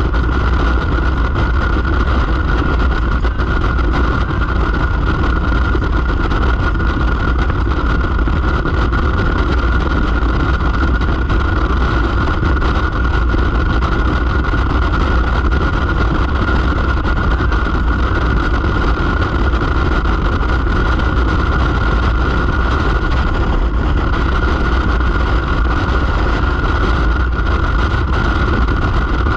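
Steady, unchanging drone of a vehicle cruising on the road: engine and road noise running evenly.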